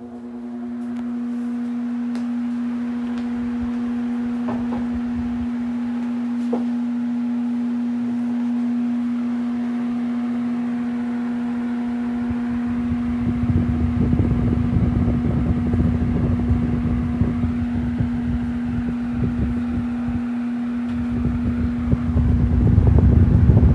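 Arge Max 200 W, 60 cm electric fan running: a steady motor hum that swells over the first couple of seconds. From about halfway, the fan's airflow buffets the microphone with rumbling wind noise that grows louder toward the end.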